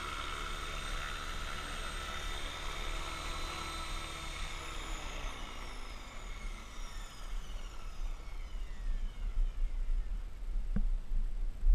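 Radio-controlled helicopter UAV's motor and rotor whine, steady at first and then winding down in falling pitch after about four seconds as it comes to rest after landing. Uneven low rumbling follows, with a sharp click near the end.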